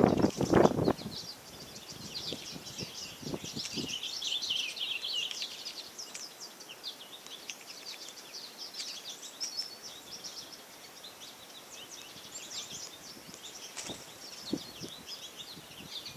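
Many small songbirds chirping and singing in a steady, busy background chorus. A few dull thumps sound in the first second, and a couple more near the end.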